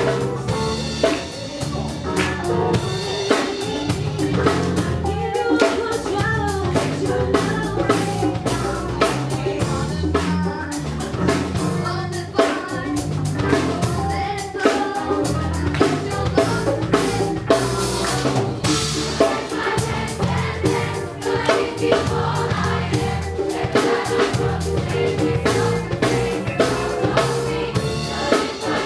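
Live gospel music: a drum kit plays a steady beat over a bass line while voices sing.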